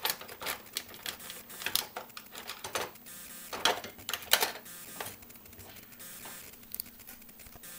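Irregular clicks and clatter of small hard objects being handled, with about a dozen sharp knocks spread through, over a faint steady hum.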